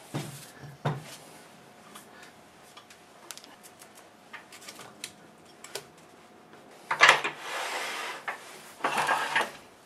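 A heavy half log being handled and twisted onto a lathe's screw chuck: a few light knocks, then two spells of loud wood-on-metal scraping and rubbing near the end as the log is screwed on.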